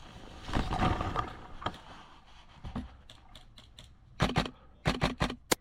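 Airsoft guns firing: a few faint shots, then short groups of sharp snaps, two, then three, then a single shot near the end. Before that, a brief stretch of rustling movement.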